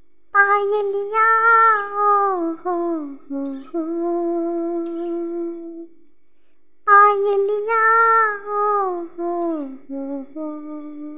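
A high solo voice singing two matching wordless phrases, each starting on a high note, stepping down and ending on a long held note, with a short pause between them.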